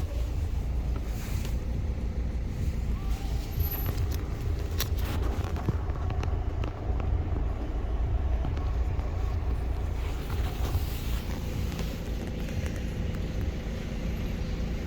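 Steady low rumble, with a few brief clicks about one and five seconds in.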